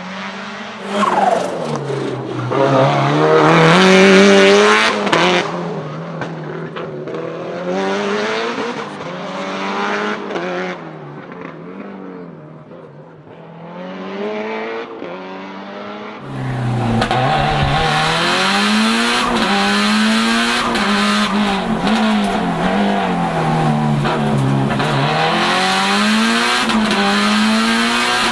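Lancia Delta HF Integrale Evo 2's turbocharged four-cylinder engine, tuned to about 500 hp, driven hard: its pitch climbs and drops again and again as it accelerates, lifts and shifts. About sixteen seconds in the sound jumps abruptly louder and noisier, with a steady rush behind the engine.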